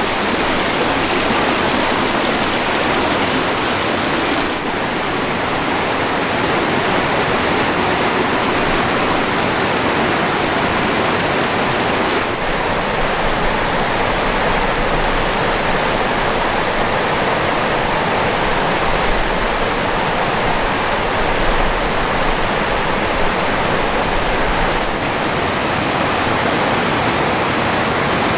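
Mountain stream rushing steadily over rocks, a loud, even wash of water.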